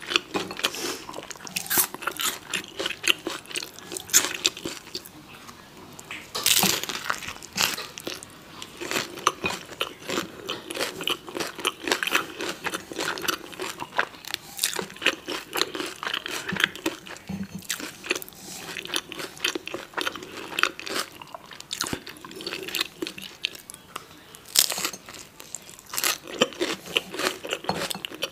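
Close-miked chewing and crunching of a vegetable-filled tortilla taco roll, a dense run of small wet mouth clicks, with a few louder crunches standing out, the biggest about six seconds in and again near the end.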